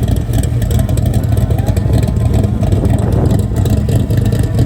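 A car engine running steadily, with a choppy, uneven low note.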